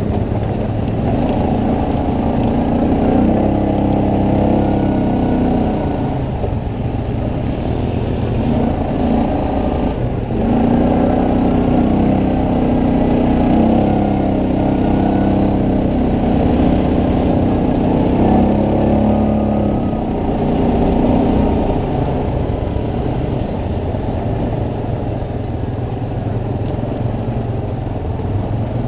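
ATV engine running under way, its pitch rising and falling for several seconds at a time as the throttle is opened and eased.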